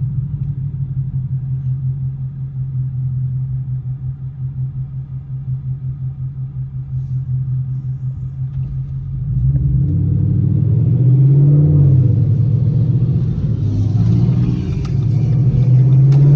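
Ford Mustang GT's 5.0-litre V8 with a loud exhaust, heard from inside the cabin. It idles with a steady, pulsing rumble, then about nine and a half seconds in it pulls away. The revs rise, drop back at a gear change, and climb again near the end.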